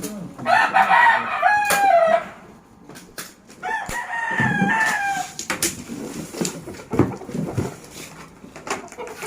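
A rooster crowing twice, each crow lasting a second and a half or more, with scattered knocks and clatter between and after.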